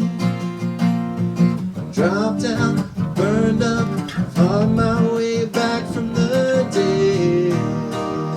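Live song with strummed acoustic guitar chords, and a gliding vocal melody line coming in over them about two seconds in.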